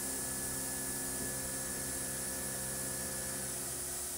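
Tormach 770M CNC mill spindle turning a quarter-inch four-flute ball end mill at 6,000 RPM while slotting a part: a steady machining hum with several held tones. The tones cut off near the end as the slotting pass finishes.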